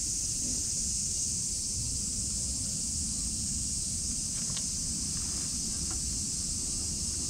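Steady high-pitched outdoor hiss over a low, unsteady rumble of wind on the microphone, with a couple of faint ticks about halfway through.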